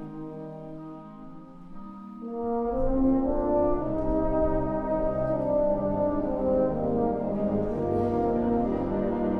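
Concert wind band playing a sustained, melodic passage. About two and a half seconds in, the full band comes in with low brass and bass underneath, and the music grows clearly louder and fuller.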